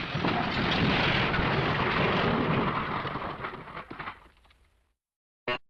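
MGM 'elephant smash' crash sound effect: a loud smash with dense rumbling, clattering noise that fades away over about four seconds, then a short sharp burst near the end.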